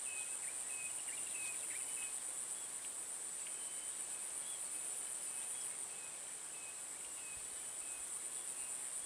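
Insects trilling in a steady, high-pitched drone, with short evenly repeated chirps over it for the first couple of seconds and again after the middle.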